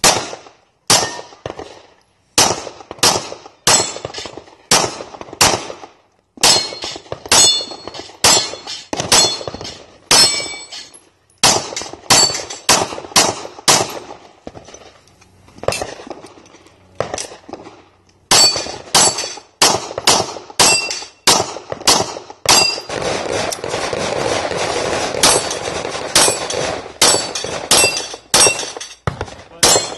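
Pistol shots fired in quick strings at steel plate targets, most shots followed by the high ring of a struck steel plate, with short pauses between strings.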